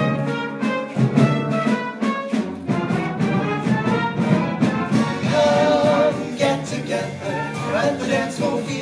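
Orchestral swing music led by brass, playing an instrumental passage with a steady beat, with no singing.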